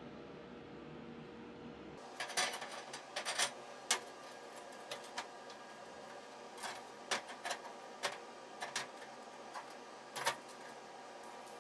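Steel square tubing and magnetic welding squares being set down and shifted by hand on a steel welding table: irregular light metallic clinks and knocks, busiest from about two to four seconds in, over a faint steady hum.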